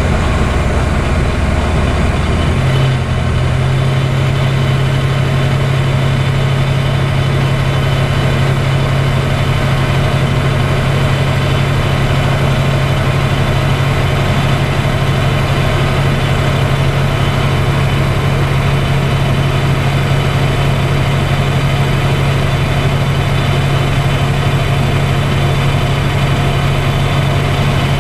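Light aircraft's engine and propeller running steadily at cruise, heard from inside the cockpit as a loud, even drone. The engine note steps up slightly about three seconds in and then holds.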